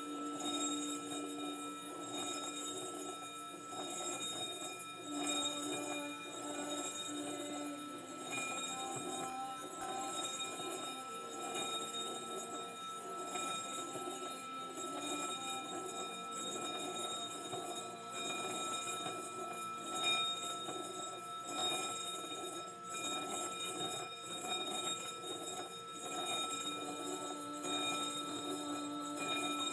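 Tibetan singing bowl made to sing by rubbing a wooden mallet around its rim: a sustained ringing tone with a wavering, pulsing hum beneath it. There are a few faint clicks where the mallet touches the rim.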